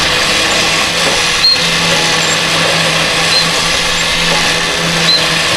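Electric winch running steadily under load, slowly pulling an antique cement mixer up a flatbed trailer deck. A short high squeak recurs about every two seconds.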